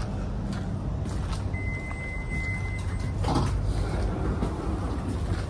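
Suburban electric train's low, steady rumble heard from inside the carriage as it comes into a station, with a single steady high beep lasting about a second and a half, then a short clatter about three seconds in.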